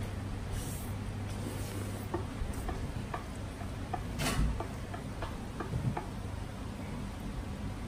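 Light clicks and taps of chopsticks and tableware, irregular and a few with a short ring, with one louder knock about four seconds in, over a steady low hum.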